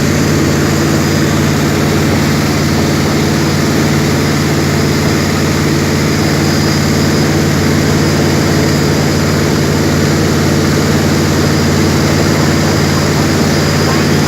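Jet boat engine running steadily at an even pitch, a loud, unchanging drone.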